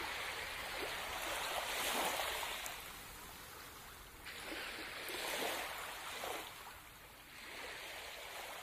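Ocean surf: waves washing in and drawing back, swelling three times.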